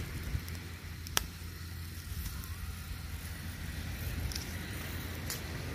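Small open fire of dry grass and palm leaves burning with crabs roasting in it, crackling, with one sharp pop about a second in and a few fainter ones near the end, over a steady low rumble.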